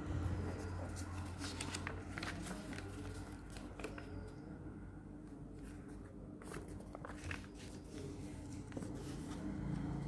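A sheet of paper being unfolded, folded and creased by hand on a wooden table: irregular crinkles and soft rustles. A steady low hum runs underneath.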